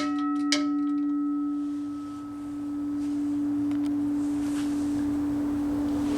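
US&S teardrop railroad crossing bell ceasing to ring: a last strike about half a second in, then the gong's tone rings out and fades over a couple of seconds. A steady low hum continues underneath.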